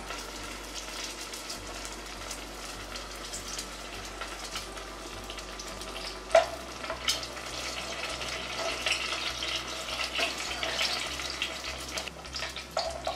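Batter-coated onion rings deep-frying in hot oil in a pot: a steady crackling sizzle that grows a little louder in the second half, with a couple of sharp knocks about six and seven seconds in.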